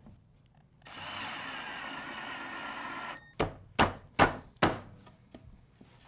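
Cordless drill driving a pocket screw into a wooden leg, running steadily for about two seconds, followed by four sharp knocks on wood in quick succession.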